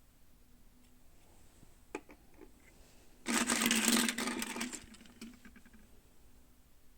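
Toy packaging being handled: a few light clicks, then a dense burst of crinkling and crackling lasting about a second and a half, fading into scattered ticks.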